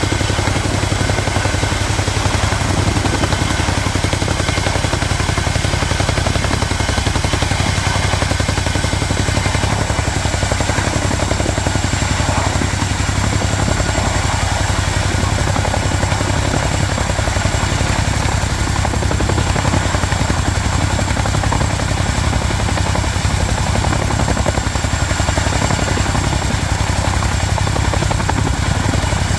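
RAF Boeing Chinook tandem-rotor helicopter hovering low under an underslung load. Its twin rotors thrum steadily under a high, steady turbine whine.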